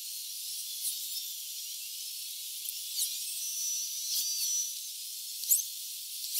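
Outdoor evening ambience: a steady high hiss with short bird chirps scattered through it and a thin whistling note for about a second in the middle. A single sharp click comes about five and a half seconds in.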